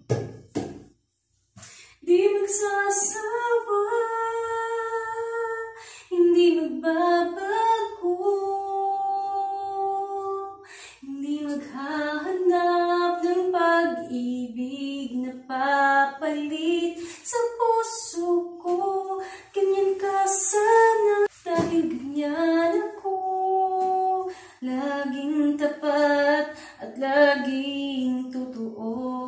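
A woman singing a Tagalog love ballad unaccompanied, with long held notes, her voice echoing off the hard walls of a small tiled bathroom. A few short knocks come in the first two seconds before the singing starts.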